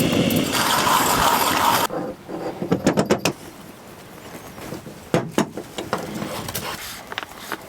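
Handling of coffee-making gear: a loud rushing, scraping noise for about two seconds at the start, then a cluster of sharp clicks and knocks about three seconds in and another about five seconds in.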